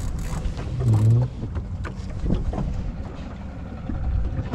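Small boat at sea: a steady low rumble with water sloshing against the hull. A short, loud grunt-like voice sound comes about a second in.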